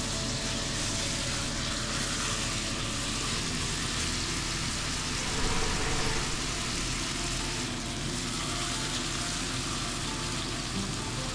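Chicken breasts sizzling steadily as they brown in hot butter in a frying pan, briefly louder about halfway through.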